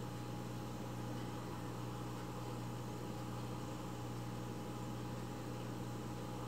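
Steady low hum under an even hiss: indoor room tone.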